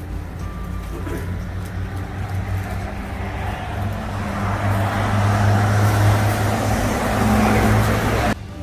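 Road traffic: a steady low engine hum with a rushing noise that grows louder over several seconds, then cuts off suddenly near the end.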